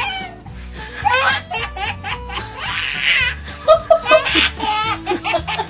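Baby laughing in several high-pitched bouts, the strongest about three seconds in, over soft background music.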